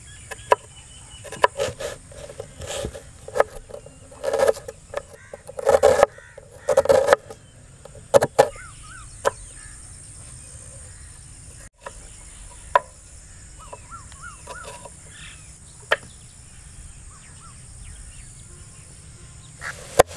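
Kitchen knife chopping onion on a wooden cutting board: irregular knocks of the blade striking the board, with a cluster of stronger ones in the first half. Birds call in the background, with short warbling calls twice.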